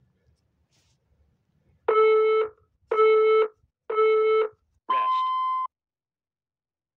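Interval workout timer counting down: three short beeps a second apart, then a longer, higher-pitched beep that marks the end of a work interval and the start of the rest.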